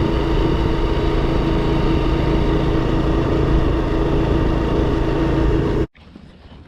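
Motorcycle engine running at a steady speed with rushing noise, the Honda Super Cub's single-cylinder four-stroke, steady in pitch; the sound cuts off abruptly near the end, leaving only faint background noise.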